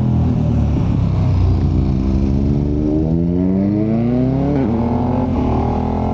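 KTM 1290 Super Adventure's V-twin engine accelerating hard. The revs climb for about three seconds, drop sharply at an upshift a little past halfway, then climb again.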